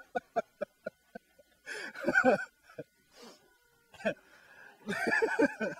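A man laughing: a quick run of short, evenly spaced "ha" pulses, then two longer, breathy bursts of laughter about two and five seconds in.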